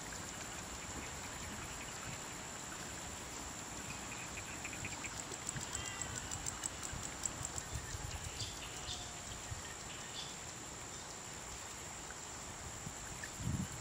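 Faint rural outdoor ambience: scattered bird chirps, with a run of fast ticking calls about five to seven seconds in, over a steady high whine and soft hiss.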